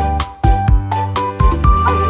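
Background music with a steady beat, bass notes and a short repeating melody.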